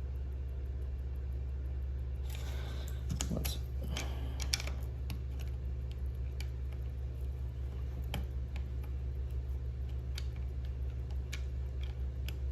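Scattered small clicks and light taps of watchmaking tools working on a Seiko 6139 chronograph movement, with a brief rustle about two seconds in, over a steady low hum.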